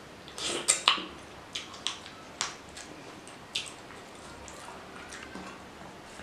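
Wet mouth sounds of a person eating rice and mutton curry by hand: a quick cluster of loud smacks and slurps about half a second to a second in, then scattered single smacks while he chews.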